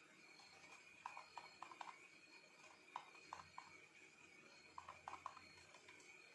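Near silence with a faint steady high-pitched whine and three small clusters of quick faint clicks.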